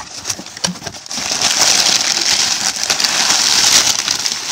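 Hands rummaging through crinkly packing material inside a cardboard shipping box: a continuous crackling rustle that starts about a second in.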